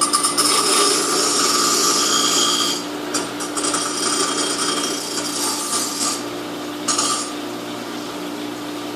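Electric grinder running steadily while a piece of steel is pressed against the wheel in passes; the grinding hiss is loudest for the first three seconds, then comes and goes in shorter spells.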